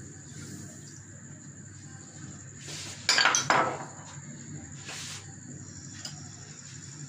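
Kitchenware clattering: a short burst of clinks and knocks about three seconds in and a single knock about two seconds later, over a faint steady background.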